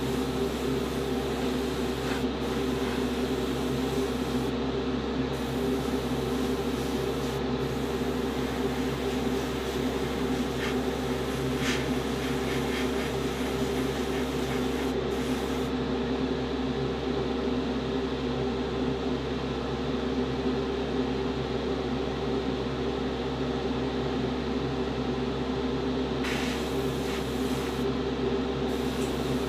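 Steady motor hum with an airbrush hissing as it sprays paint. The hiss stops briefly a few seconds in, drops away for about ten seconds past the middle, and starts again near the end.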